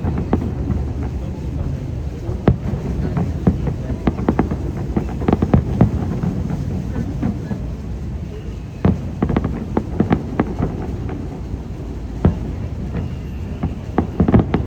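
Aerial fireworks display: a rapid string of sharp pops, bangs and crackles over a steady low rumble.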